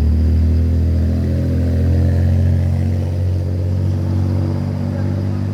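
An engine running steadily at low revs, a continuous low hum.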